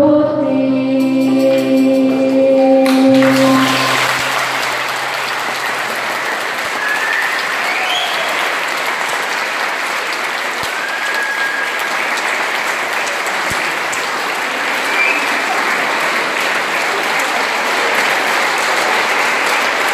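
A children's school choir holds its final chord with keyboard accompaniment, ending about four seconds in, and the audience then applauds steadily.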